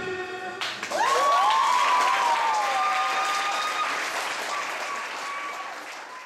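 The music stops and a small audience breaks into applause, with a few long whooping cheers over the clapping; the applause slowly fades toward the end.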